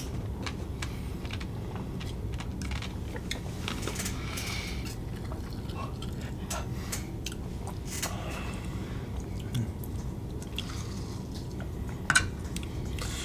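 Sipping a cocktail through a straw from a tiki mug packed with crushed ice, with small clicks and crunches of the ice throughout and a sharper knock near the end.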